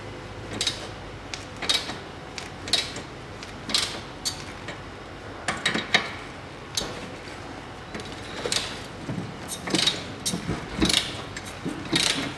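Ratchet wrench clicking in short irregular bursts as it turns a 19 mm socket on the tie rod end's ball-stud nut, which is tight.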